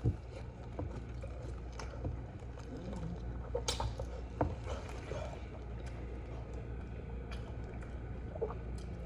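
Quiet eating sounds: chewing with scattered small clicks and smacks over a steady low hum.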